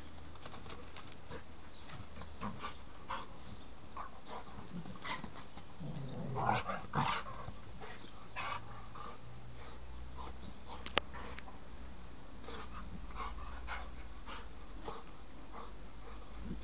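Large dog playing rough with a rope toy: scattered soft clicks and rustles of the toy and paws, with a brief growl about six to seven seconds in and a single sharp click near eleven seconds.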